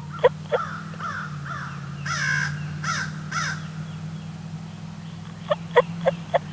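Crows cawing: three harsh caws a little past the middle, with quicker, sharper calls in short runs at the start and again near the end.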